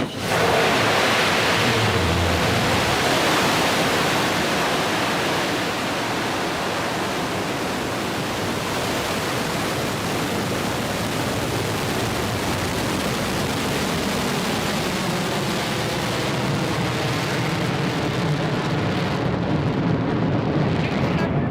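Blue Origin New Shepard rocket's single BE-3 hydrogen-oxygen engine at ignition and liftoff: a loud, dense rushing noise that sets in abruptly and holds steady as the rocket climbs away.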